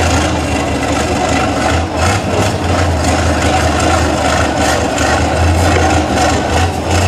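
Diesel engine of a Tatra 815 six-wheel-drive trial truck running steadily at low revs while the truck crawls, heavily tilted, over a steep mud slope.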